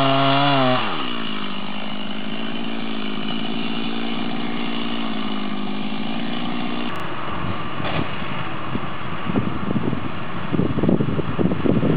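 A chainsaw at high revs drops to idle about a second in, then idles steadily. About seven seconds in it cuts off abruptly, leaving uneven gusty noise with no engine in it.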